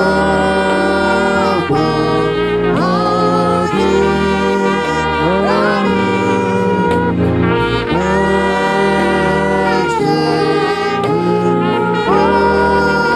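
Music: a lead melody of long held notes, several sliding up into pitch as they begin, over a steady bass line.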